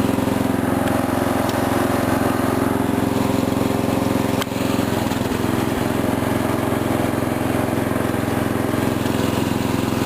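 Briggs & Stratton engine of an Ariens rear-engine riding mower running steadily as the mower is driven, with a single sharp click about four and a half seconds in.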